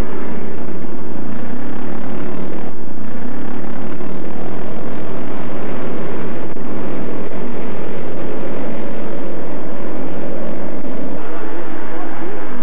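Classic racing motorcycle engines running hard at racing speed, a loud steady drone with no break.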